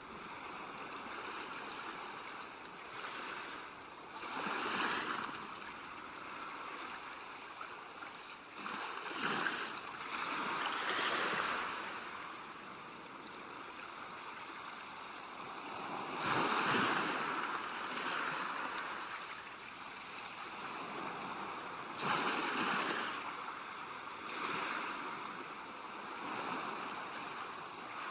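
Ocean waves breaking, each crash swelling up and washing out every few seconds, with a steady hiss of surf in between.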